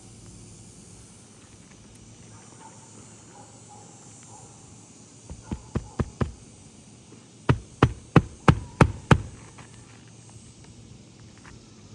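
Hammer driving roofing nails through new asphalt shingles into the wooden roof decking: a quick run of about five strikes, then about six louder, evenly spaced strikes a little later.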